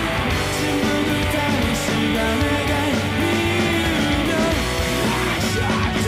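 Background rock music with guitar.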